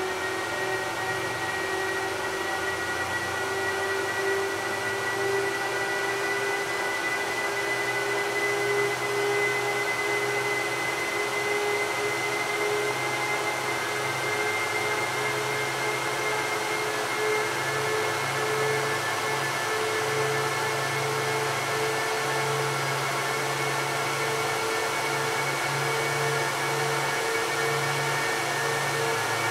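Cooling fans of an Apple Xserve server and Xserve RAID running loud and steady, with a whine that creeps slowly higher in pitch over a low hum.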